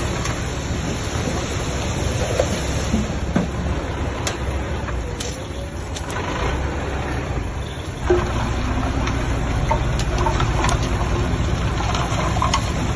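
Heavy earthmoving machine's engine running, with scattered clicks and knocks; about eight seconds in it gets suddenly louder, as if put under load.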